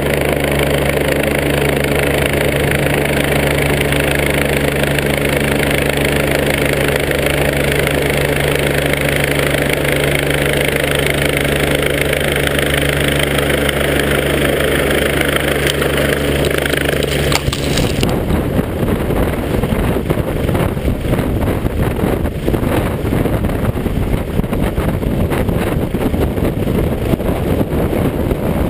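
Helicopter descending to land close by, its rotor and engine giving a steady hum with several held tones. A little past halfway, the rotor downwash hits the microphone and a loud, ragged rush of wind and blowing dust buffets it, drowning out the engine tones.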